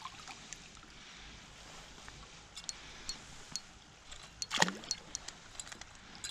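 A small trout drops off the hook into the water with a single splash about four and a half seconds in, over a low steady background with a few light ticks.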